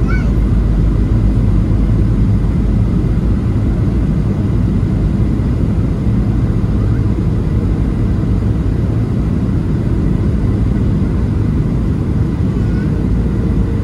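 Steady cabin roar inside a Boeing 737-700 in flight, heard from a seat over the wing: the CFM56-7B turbofan engines and the airflow over the fuselage make an even, deep rush of noise.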